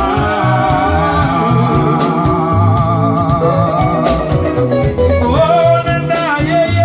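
Congolese rhumba band music: a steady bass line under guitars, with a sustained, wavering melody line held over it that slides up to a higher note about five seconds in.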